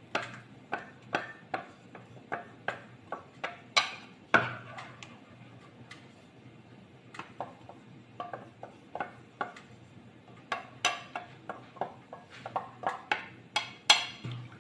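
A metal spoon clinks and knocks against a cooking pot in quick, irregular strokes while powdered coconut is mixed in. The knocking stops for a couple of seconds midway, then picks up again.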